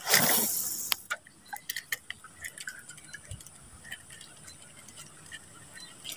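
A short rush of noise in the first second, then faint irregular ticks and small plops of water as a lure is worked across the swamp pool on a casting rod.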